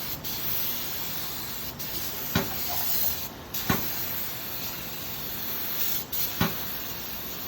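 Duro Dyne SSFU adhesive spray gun hissing steadily as it sprays water-based duct liner adhesive, thinning briefly about three seconds in. Three low thumps are heard over the spray.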